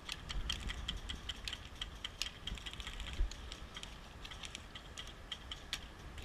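Airsoft guns firing across the field: scattered sharp clicking shots, some in quick runs, with a faint low rumble beneath.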